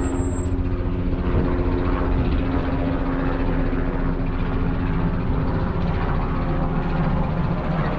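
An engine running steadily: a constant low drone with a rushing noise over it.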